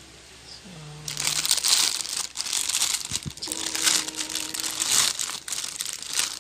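Crinkly gift packaging being handled and pulled open: loud irregular crinkling rustles that start about a second in and carry on.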